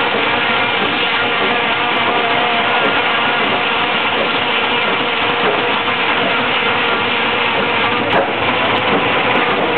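Sawmill machinery running steadily, with a constant engine-like hum and a short knock about eight seconds in.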